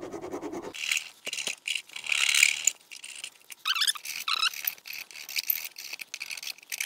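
Hand file rasping back and forth over the freshly cut ends of a motorcycle's metal exhaust-hanger tubes in a series of separate strokes, a few with a high squeal of file on metal. The file is deburring the cut edges.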